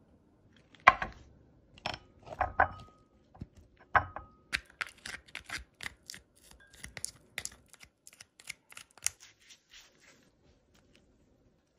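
Cooked Tasmanian giant crab being broken apart and its meat pulled from the shell: a few separate knocks, then a fast run of sharp cracking and tearing clicks.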